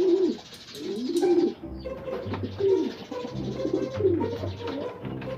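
Racing pigeons cooing over and over, several coos overlapping, each rising and falling, with a few sharp clicks among them.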